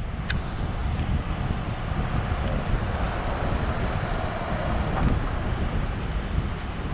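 Truck driving slowly: steady engine and road rumble with wind noise on the microphone, and a short click just after the start.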